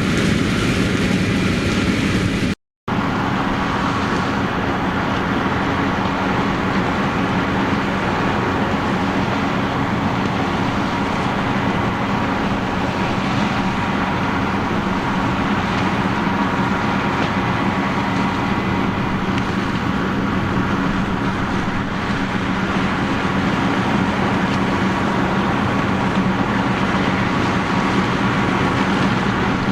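Heavy harvest machinery running steadily under load, a constant low engine drone with a hum of working parts over it. The sound cuts out for a moment about three seconds in.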